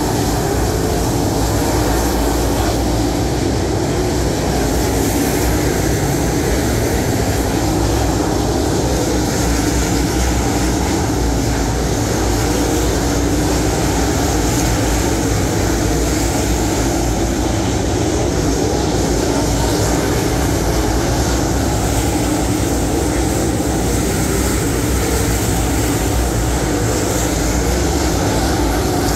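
A field of dirt late model race cars' V8 engines running at racing speed around a clay oval, a loud, steady din of several engines at once.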